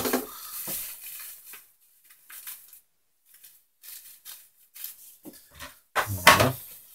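Hard plastic parts of a Tetra EX 800 Plus canister filter being handled: the filter-pad tray knocking and scraping against the canister body in scattered light clatters, with a louder clatter about six seconds in.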